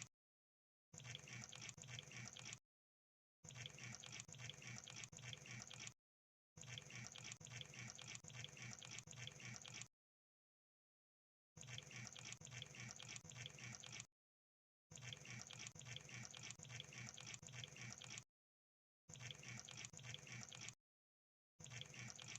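Crab sound effect: rapid wet-sounding crackling and clicking in runs of a few seconds each, broken by short gaps of dead silence.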